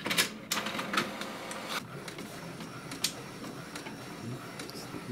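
HP DeskJet 2130 inkjet printer printing a colour page: the paper-feed and print-carriage mechanism starts up abruptly and runs steadily, broken by a series of sharp clicks.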